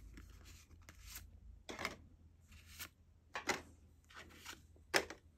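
Yu-Gi-Oh! trading cards being handled and set down while they are sorted: a string of short, faint papery rustles and scrapes of card stock, roughly one every half second to second.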